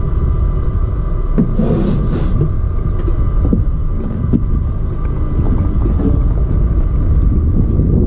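Steady low rumble of wind buffeting the microphone, with a few light knocks.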